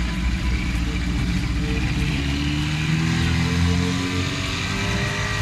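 Small outboard motor on a jon boat running steadily, then speeding up with a rising pitch about two seconds in as the boat pulls away.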